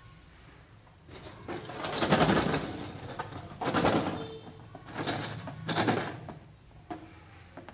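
Rubbery rubbing and squeaking as a water-filled rubber balloon is handled in the hand. It comes in four short scratchy bursts, a second or so apart.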